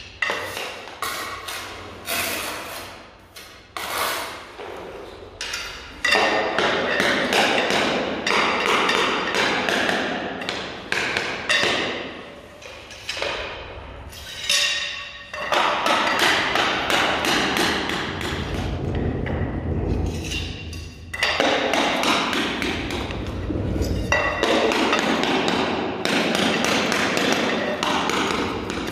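A run of sharp taps and knocks as ceramic floor and skirting tiles are tapped down into place, with background music over much of it.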